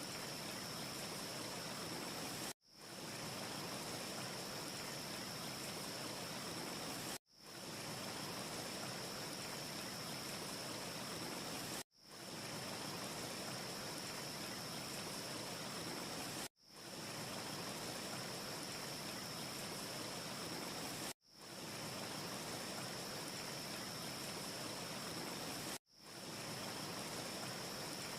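Steady rushing hiss of a looped wind ambience track. It drops out briefly six times, about every four and a half seconds, each time swelling quickly back in.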